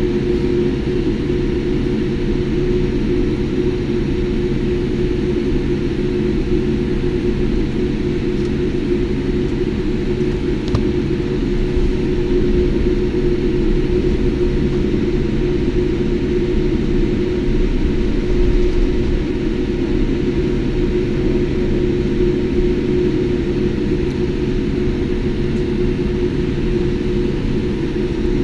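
Steady cabin rumble inside a Boeing 787 taxiing after landing: the engines at low thrust make an unbroken low drone with a few steady hum tones.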